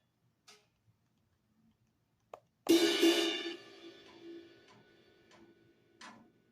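Software drum-kit samples played from a MIDI pad controller: a few light single hits, then a cymbal crash about two and a half seconds in that rings out over a couple of seconds, with a few more soft hits near the end.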